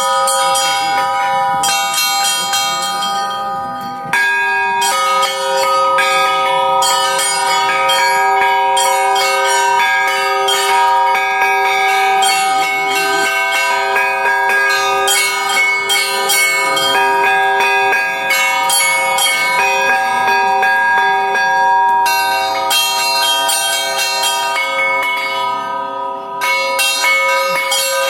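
Church bells rung by hand, the strikes coming thick and overlapping into one continuous ringing. There are short lulls about four seconds in and again near the end.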